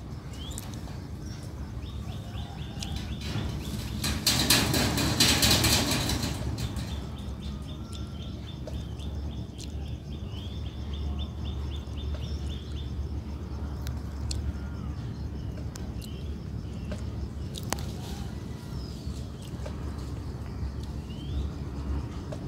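Outdoor park ambience: scattered bird chirps over a steady low rumble, with a high, fast buzzing trill for about ten seconds. About four seconds in, a loud rush of noise lasts roughly two seconds.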